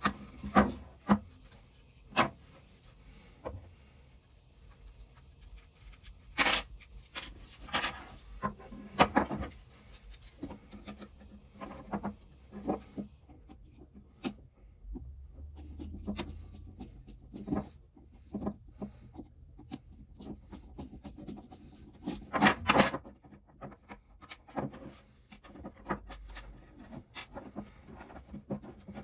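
Hand work on an old butcher saw: irregular scraping and rubbing strokes with scattered sharp clicks and knocks, the loudest cluster about three-quarters of the way through.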